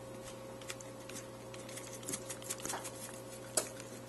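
Grated Parmesan cheese being shaken from a shaker can: scattered light ticks and rattles, with one sharper click about three and a half seconds in, over a faint steady hum.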